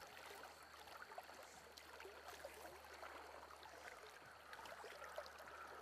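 Faint, steady rush of river current.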